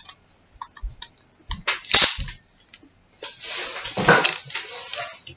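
A hand-held toy being handled: scattered sharp clicks and rattles of small hard parts, a short loud scrape about two seconds in, then a longer stretch of rattling from about three seconds to five.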